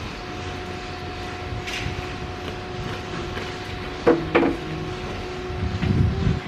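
A steady mechanical hum runs throughout. About four seconds in come two sharp knocks in quick succession, and a low rumble follows near the end.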